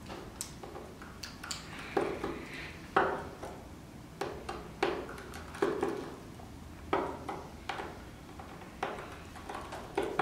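A small screwdriver and tiny screws working on an opened iPhone 4S: a string of light, irregular clicks and taps of metal on the phone's metal and plastic parts as the cover screws are backed out.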